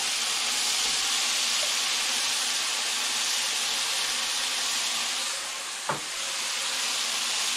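Beef sizzling steadily in a hot frying pan, with a single sharp tap, like a utensil on the pan, about six seconds in.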